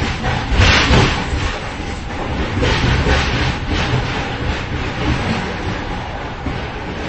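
Inside the vestibule between cars of a moving train: a steady low rumble with irregular metallic clatter and rattling, louder about a second in.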